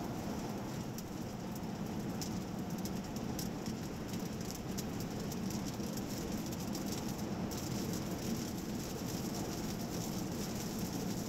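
Steady road and wind noise inside the cabin of an Audi Q8 50 TDI driving at motorway speed, with a faint light ticking or rattle that stops about seven seconds in.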